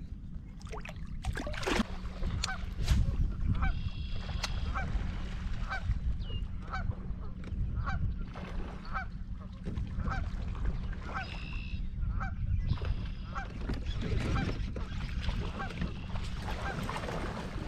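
Geese honking in a long, regular series, about two honks a second, over a steady low rumble, with a few sharp knocks near the start.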